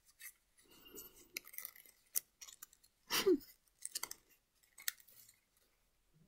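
Paper rustling and crinkling with small clicks as folded origami units are handled and slid together, plus a brief hum about three seconds in that falls in pitch.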